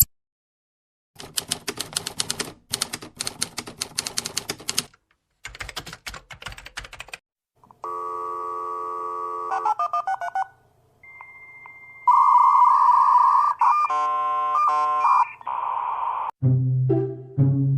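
A string of separate sound effects: about six seconds of rapid clattering keystrokes like a typewriter in two runs, then electronic tones and beeps, and a few short musical notes near the end.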